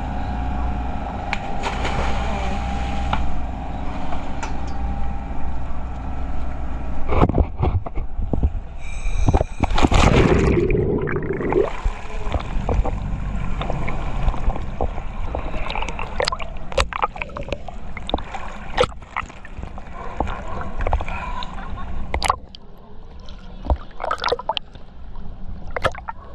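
Dive boat's engine running steadily, then a loud plunge into the sea about ten seconds in. After that, water sloshing and splashing at the surface, with scattered sharp knocks.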